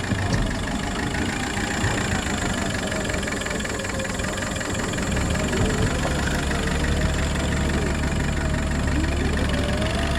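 Fishing boat's motor running steadily at trolling speed, its low hum growing stronger about five seconds in.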